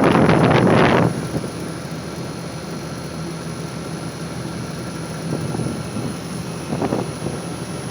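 Gree GMV5 VRF air-conditioner outdoor unit running during a refrigerant charge: a steady drone of compressor and fan with faint steady tones. A loud rushing noise fills the first second, then cuts off.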